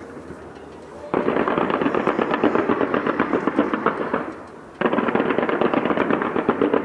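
Fireworks crackling in fast strings of pops, in two long runs: the first starts abruptly about a second in and fades after about three seconds, and the second starts just before the five-second mark.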